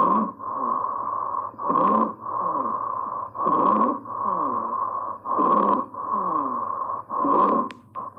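Stridor: a patient's breathing with a harsh, high-pitched, whistling noise on each breath, five breaths about every two seconds over a steady hum. It is the sign of a narrowed or obstructed upper airway, as in croup or epiglottitis.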